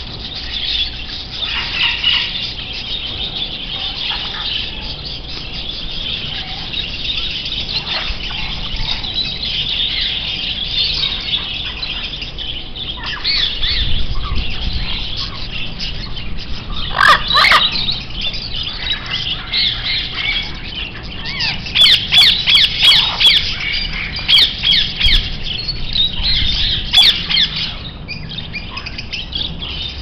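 Many caged budgerigars and parrots chattering and chirping without a break, with sharp squawks about halfway through and a run of them in the last third.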